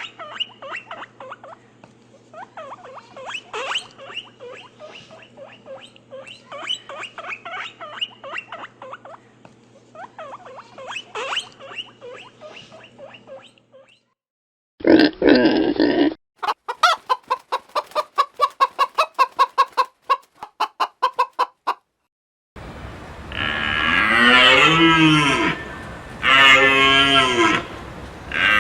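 A run of separate animal calls: for about the first fourteen seconds, short high chirping squeaks in clusters; then a brief loud call; then about five seconds of rapid, evenly spaced clucks; then, for the last six seconds, a cow mooing in long drawn-out calls.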